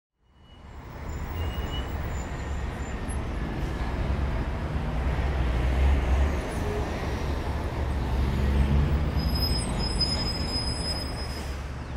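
Street traffic noise with a heavy low vehicle rumble, fading in at the start. Faint high whining tones join about nine seconds in.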